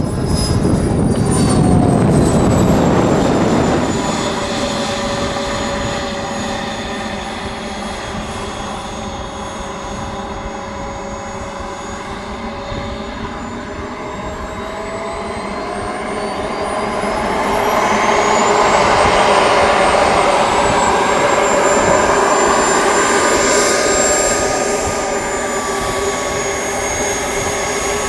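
Jetcat P120 model jet turbine whining as the model lands and rolls out, settling to a lower pitch. Past the middle the whine rises in pitch and grows louder as the turbine spools up, then holds at a higher pitch while the model taxis.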